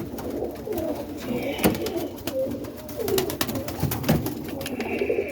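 Domestic pigeons cooing in a loft, several overlapping low calls that dip and rise, with scattered clicks and knocks.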